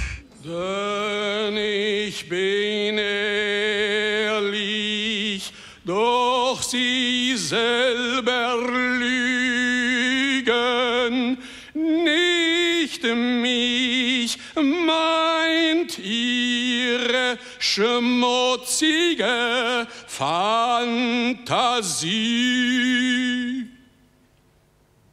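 A single voice singing with no accompaniment, with a wide vibrato. It holds long notes and again and again slides steeply down from high notes, then stops about a second before the end.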